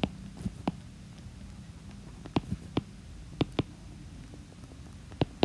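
Stylus tapping on a tablet screen during handwriting: a handful of sharp, irregular clicks.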